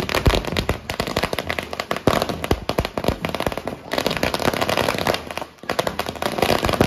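Firecrackers going off on the road in rapid succession: a dense, continuous crackle of sharp bangs, easing briefly about four and five and a half seconds in.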